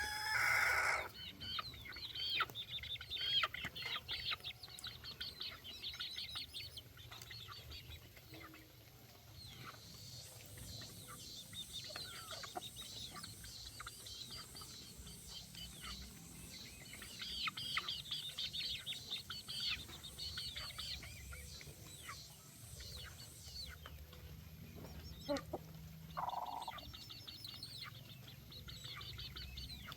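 Baby chicks peeping: many high, quick cheeps in runs that come and go, over a steady low rumble, with a short loud burst at the very start.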